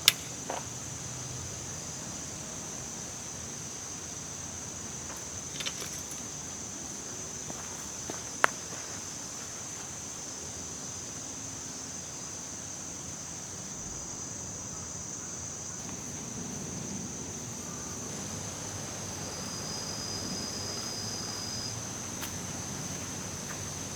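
Steady high-pitched chirring of an insect chorus, with a few sharp clicks or knocks in the first ten seconds.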